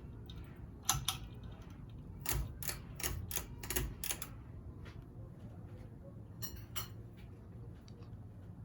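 Craftmade Presidential II ceiling fan running with a steady low hum. Sharp clicks and taps come over it: one about a second in, a quick run of about eight in the middle, and two more near the end.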